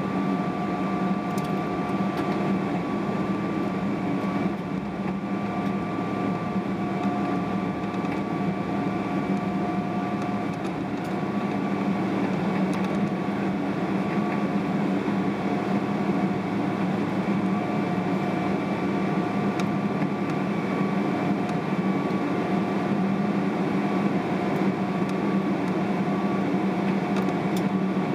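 Cabin noise inside a Boeing 777-300ER: the GE90 engines and air-conditioning hum steadily, with a few constant whine tones over a low rumble and no spool-up.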